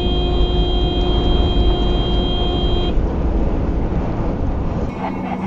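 A vehicle horn held steadily for about three seconds, then released, over the loud low rumble of road and engine noise heard from inside the vehicle's cabin. Near the end the rumble drops away abruptly.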